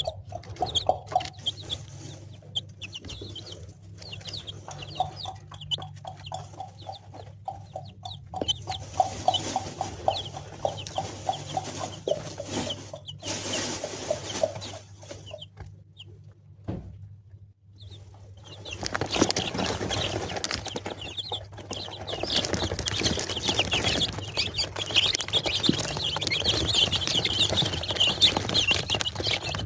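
Chickens clucking, with many chicks peeping in high, rapid chirps. There is a brief lull about two thirds of the way through; after it the peeping grows thicker and louder.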